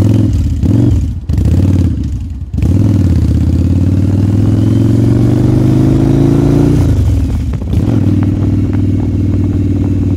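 1997 Yamaha Virago 1100's air-cooled V-twin, warmed up, revved in short throttle blips and then pulling away. It climbs steadily in pitch, drops on a gear change about seven seconds in, and then runs steadily.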